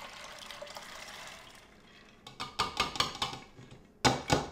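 Soaked split peas and water pouring from a stainless steel bowl into a stainless steel pot for about the first second and a half, then a spatula scraping and tapping against the metal bowl in quick clicks and knocks, with a louder knock near the end.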